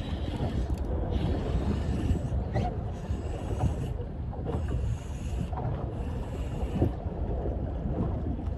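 Strong wind buffeting the microphone over choppy water lapping at a small boat's hull, with a spinning reel being wound in short spells while a fish is played on the rod.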